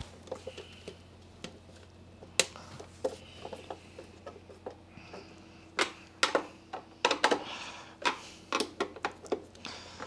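Hand screwdriver turning screws into a plastic vacuum-cleaner housing, with scattered clicks, taps and light scraping of the tool and plastic parts; the sharpest taps come in the second half.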